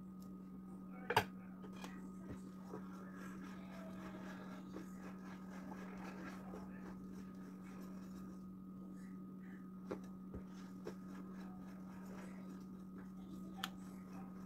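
Steady low hum of room noise with a few light sharp taps from cake-decorating tools, an offset spatula and a plastic scraper being worked against a buttercream-covered cake on a turntable. The loudest tap comes about a second in, with two smaller ones near the end.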